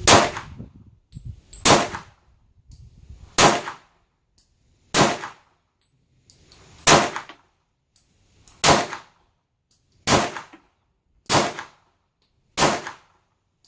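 Glock 23 .40 S&W pistol fired nine times in slow, steady succession, about one and a half seconds between shots, each a sharp crack with a short ringing tail.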